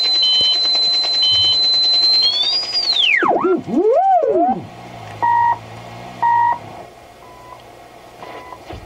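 Regenerative shortwave receiver's audio: a steady high heterodyne whistle that rises, then sweeps sharply down through zero beat and back up as the set is tuned across a carrier. After that come short beeps about once a second, the second pulses of the CHU time signal.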